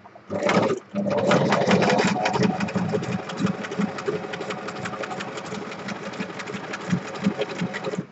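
Electric domestic sewing machine zigzag-stitching through a paper bookmark, its needle running in a fast, even rhythm. It starts up, stops briefly after about half a second, then runs on steadily.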